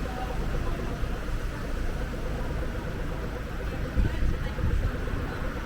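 Wind buffeting the camera's microphone: a steady low rumble with stronger gusts about four seconds in, over a faint steady hum.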